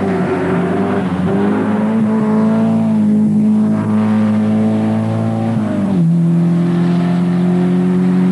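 Rally car engine held at a steady high pitch under load as the car comes on. About six seconds in its note drops as it passes by and pulls away.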